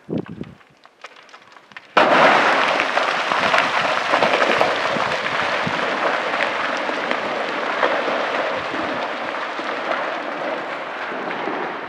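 Rocks falling down a cliff gully: a few knocks, then about two seconds in a sudden loud clatter of rock striking rock, a dense crackling rumble full of small cracks that slowly dies away.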